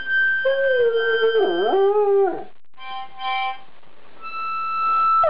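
Afghan Hound howling along to a harmonica, its howl wavering and swooping down in pitch before breaking off about halfway through, over a held harmonica note. Short steady harmonica notes follow in the second half.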